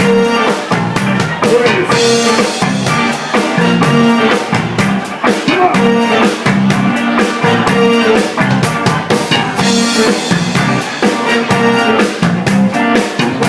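Live rock band playing an instrumental passage with no vocals: a drum kit keeping a steady beat with rimshots, over bass and guitar.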